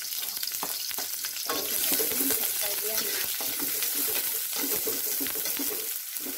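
Sliced shallots and garlic sizzling in hot oil in a wok, with a spatula scraping and clicking against the pan as they are stirred.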